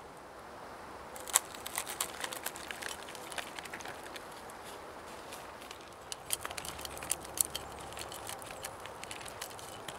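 A knife blade scraping pine resin off the rough bark of a pine tree into a plastic zip-top bag, heard as sharp crackles, clicks and crinkles in two bursts, one about a second in and one past the middle.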